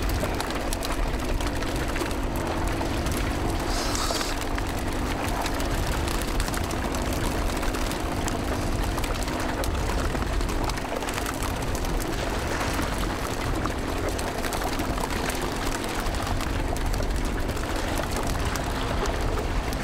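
Water sloshing around a small open fishing boat: a steady rushing noise, with a faint low hum from about two to eight seconds in.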